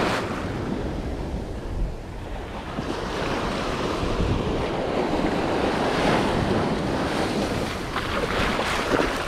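Ocean surf washing onto a sandy beach in a steady wash, with wind rumbling on the microphone.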